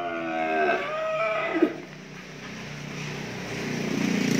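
Cattle mooing: one call that bends in pitch over the first second and a half, then a lower, drawn-out moo that swells toward the end.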